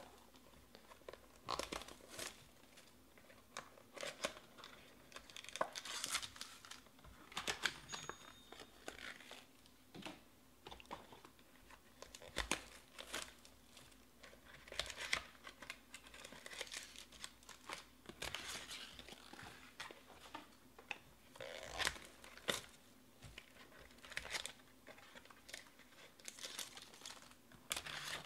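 Foil and plastic wrappers of trading-card packs being torn open and crinkled by hand: a long run of irregular sharp crackles and rustles.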